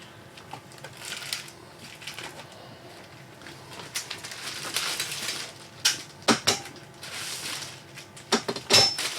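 New metal drawer slides being handled: crinkly rustling in stretches, with sharp metallic clicks and clacks in the second half, a few close together.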